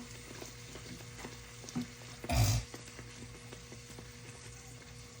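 Pieces of fried bake dough sizzling in hot oil in a frying pan, with faint clicks, and one brief louder knock about halfway through.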